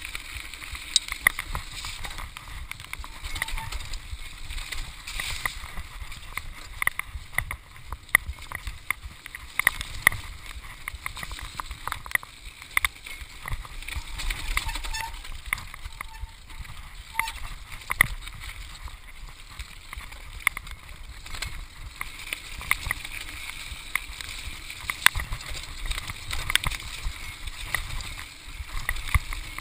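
Mountain bike descending a rough dirt-and-stone forest trail at speed: tyres rolling over the ground under a low rumble, with frequent sharp clattering knocks and rattles as the bike hits bumps and stones.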